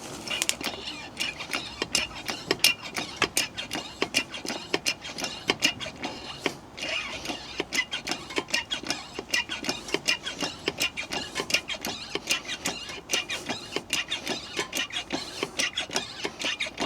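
Hand-operated hydraulic pump of a pull-back ram kit being worked, giving quick rhythmic squeaks and clicks at about three or four strokes a second, with a short pause about six and a half seconds in, as the ram is pressurised to pull a pushed-in A-pillar out.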